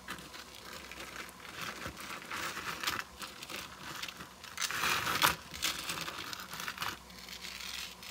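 Irregular crinkling and rustling handling noise with scattered light clicks as a beaded necklace on a metal chain is handled, loudest about five seconds in.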